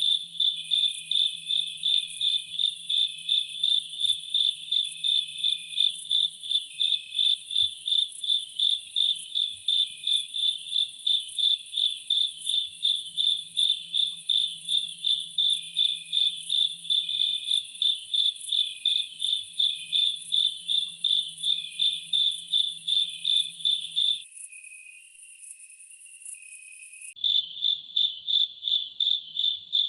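Insects chirping in a rapid, even pulse, with a second, lower chirp between the pulses. The main pulsing stops for about three seconds near the end, then starts again.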